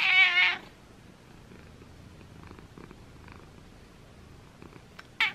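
Domestic cat gives one loud, wavering meow with its mouth wide open while being stroked, then purrs softly. A brief high chirp comes near the end.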